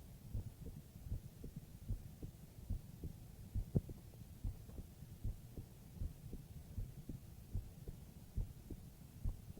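A human heartbeat heard close against the chest: a steady, low, double 'lub-dub' thump a little more often than once a second.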